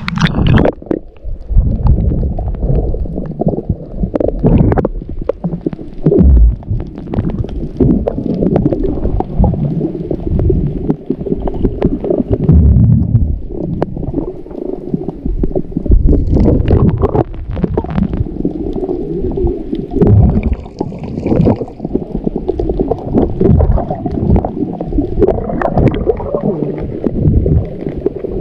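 Muffled water gurgling and rumbling in irregular surges, heavy and low, with occasional sharper splashes or knocks.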